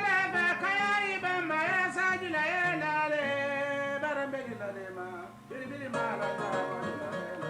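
A man singing a praise song in the Gambian jali tradition, accompanying himself on the kora, a West African harp-lute. The voice fades out after about four seconds, and the plucked kora runs on alone after about six seconds.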